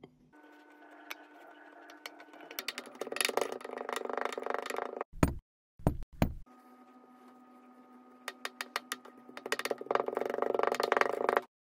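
Kinetic sand crunching as a wooden pestle presses it down in a glass: fine crackling that thickens and grows louder, over a faint steady tone, heard twice. Between the two presses, a few short soft thumps as sand cubes drop in.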